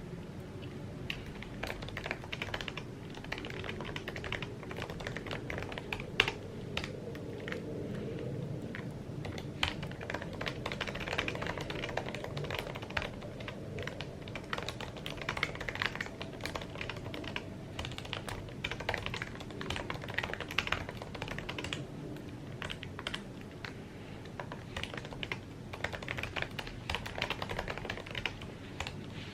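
Continuous typing on an Apple keyboard: quick, irregular key clicks with short pauses between runs.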